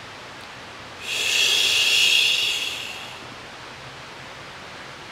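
A man exhaling a qigong healing sound: one long voiceless, breathy hiss of about two seconds that starts about a second in and fades away.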